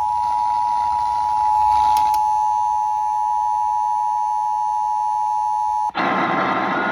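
Emergency Alert System attention signal: a loud, steady alert tone that cuts off suddenly about six seconds in, giving way to a steady hiss like radio static.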